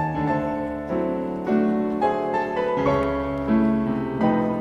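Background piano music: a slow melody of struck notes over held chords, a new note roughly every half second to second.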